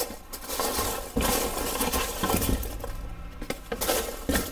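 Hands going through the contents of an unboxed subscription box: packaging rustling and being moved about, with several small clicks and clinks.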